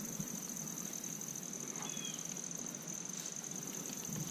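Insects trilling steadily at a high pitch, with a short faint chirp about two seconds in.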